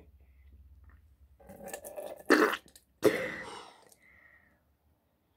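Mouthwash swished in the mouth and then spat into a sink: a short wet swishing, then two loud spits about three quarters of a second apart.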